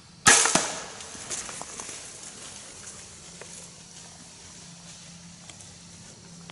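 A single shot at a whitetail deer: one sharp, loud crack just after the start with a smaller crack a moment later, then scattered snapping and crackling in the leaves over the next few seconds.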